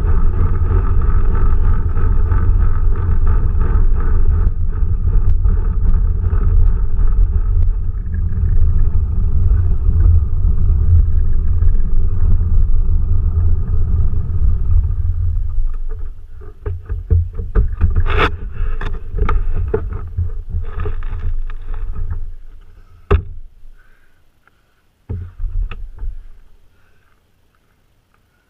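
Quest velomobile rolling along a paved road, its shell carrying a loud, steady low rumble of tyre and road noise that dies away as it slows to a stop about sixteen seconds in. Then a run of knocks and clunks, with one sharp knock about seven seconds later, as the rider climbs out.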